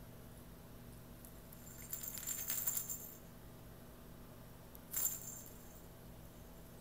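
Small metal jingling as a cat wrestles and bites a plush toy: a run of jingles lasting about a second starting about two seconds in, and a short jingle about five seconds in.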